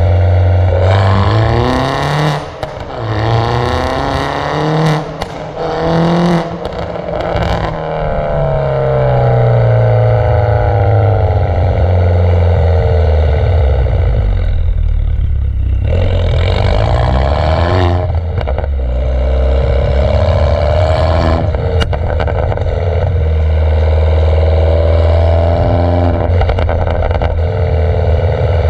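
Mini John Cooper Works R56's 1.6-litre turbocharged four-cylinder through a decatted, non-resonated exhaust, heard at the tailpipes while driving hard: the exhaust note climbs through the revs in long pulls, dropping between them as the driver shifts or lifts off. In the first several seconds, sharp pops and crackles break in as the throttle comes on and off.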